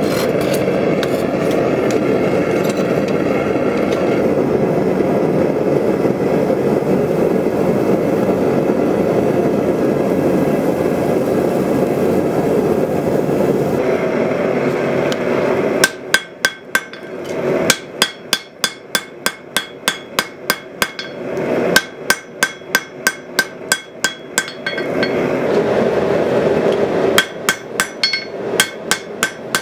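Propane gas forge burner running with a steady rush for about the first half, then a hand hammer striking a hot layered Damascus billet on a steel anvil, about two to three blows a second, each blow ringing, to set the billet's second forge weld. The forge's rush comes back briefly between bouts of hammering.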